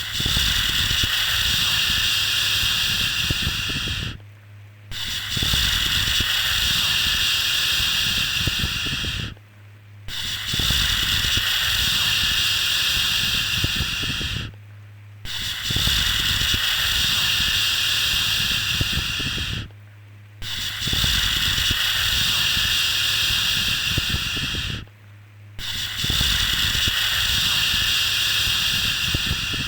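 A long 'shhh' shushing sound repeated about six times, each about four seconds long with a short break between, over a faint low hum.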